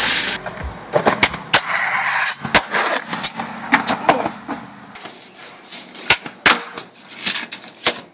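Skateboards on a hard floor: a string of sharp, irregular clacks from boards popping, tails slapping and wheels landing, about a dozen in all, with rolling noise between some of them.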